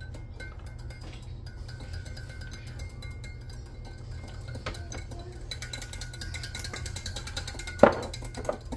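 Light background music with mallet-percussion tones, over the ticking of a wire whisk against a glass measuring cup, thicker from about five and a half seconds in. A single sharp knock near the end is the loudest sound.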